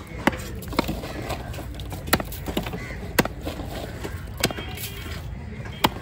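A broad fish-cutting knife chopping through a large fish onto a wooden log block: about six sharp knocks at uneven intervals, over a steady background of market noise.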